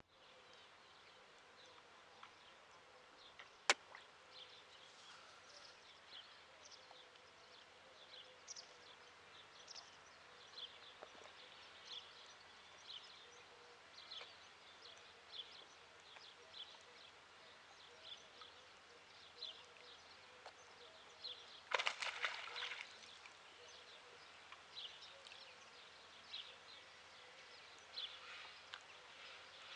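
Quiet lakeside ambience with small birds chirping in short high notes, on and off throughout. There is a sharp click about four seconds in and a brief, louder rush of noise about two-thirds of the way through.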